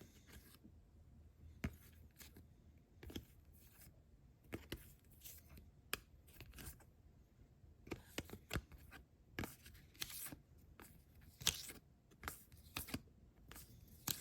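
Thick paper cards being handled and flipped through one by one: a string of faint, irregular clicks and rustles.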